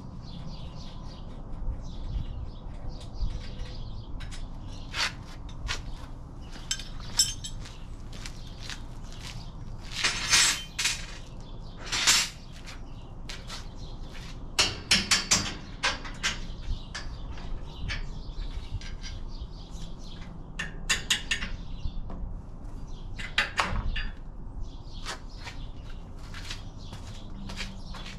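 Hand tools clinking and clanking on the dune buggy's metal rear suspension while the shocks are being removed: irregular sharp knocks, with the loudest cluster of clanks around ten to fifteen seconds in. Birds chirp in the background.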